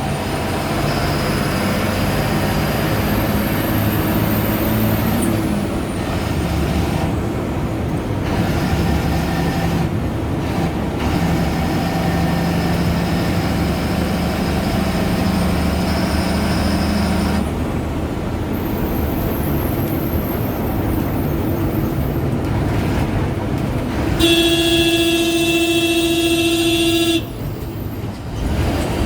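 Ashok Leyland BS4 bus's turbocharged diesel engine running under way, with a high turbo whistle rising over the first five seconds and then falling away. Near the end a horn sounds for about three seconds.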